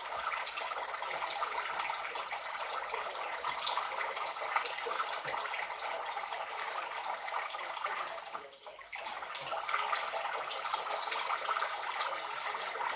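Water splashing and trickling from a small homemade bird-bath fountain, running steadily, with a brief dip about eight seconds in.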